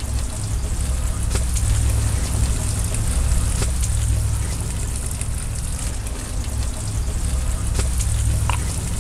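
Wind buffeting the microphone outdoors: a loud, uneven low rumble with a steady hiss over it and a few faint clicks.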